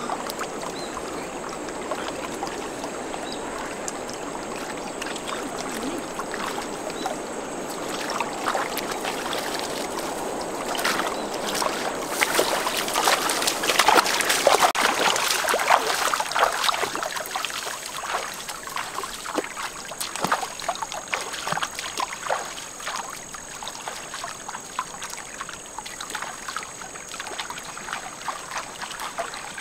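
Water trickling and splashing, with many irregular small splashes and knocks that come thickest and loudest around the middle.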